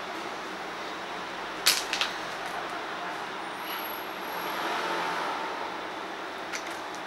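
A clear plastic binder sleeve page being turned: two sharp clicks close together a little under two seconds in, and a soft plastic rustle a bit later, over a steady hiss.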